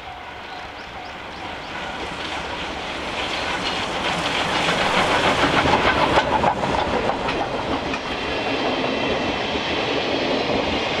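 Steam locomotive passing close by, its exhaust chuffing in a steady rhythm, growing louder to a peak about halfway through. Then the coaches' wheels clatter over the rail joints.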